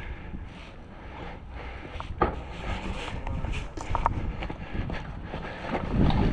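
Footsteps on rough ground with wind rumbling on the camera microphone, and a single sharp click about two seconds in.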